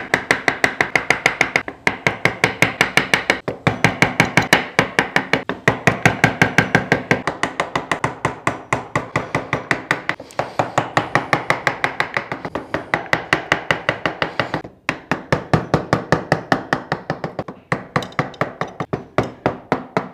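Wooden mallet striking a wood chisel in rapid, steady blows, several a second with a few short breaks, as the chisel cuts away wood around a raised circle in a board. Each blow rings briefly.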